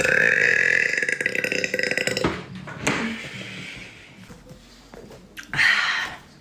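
A woman's long, loud burp lasting about two seconds, then a second, shorter burp near the end.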